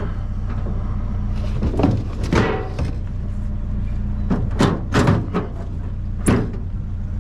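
A series of knocks and clatters of scrap items being shifted and strapped down on a truck with a bungee cord, over a steady low engine hum.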